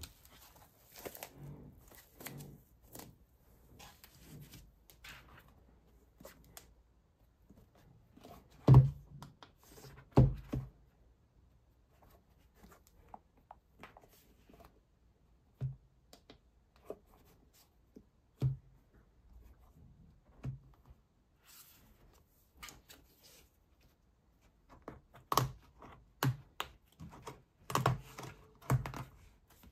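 Handling noises from a tablet-style diagnostic scanner on a table: scattered taps and clicks, and two loud knocks about nine and ten seconds in. Near the end there is a busy run of clicks and scrapes as the scanner's rubber protective cover is pried off with a plastic pry tool.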